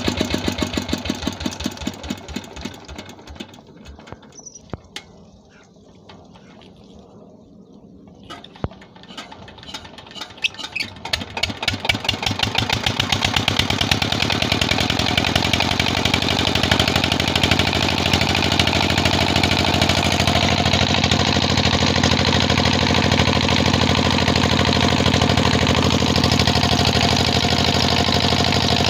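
SD 16 hp single-cylinder diesel engine with the firing beats dying away as it slows, then a sharp knock and it starts again, beats quickening and growing louder until it settles into a steady run.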